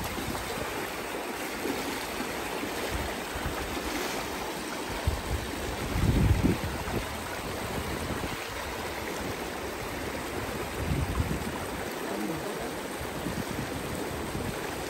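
River water rushing steadily in a stream, with short buffets of wind on the microphone twice, about six and eleven seconds in.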